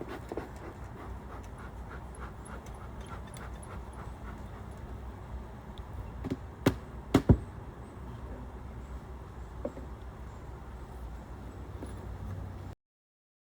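A few sharp wooden knocks from beehive boxes and lid being set in place as the hive is closed, over a steady low outdoor background. The sound cuts off suddenly near the end.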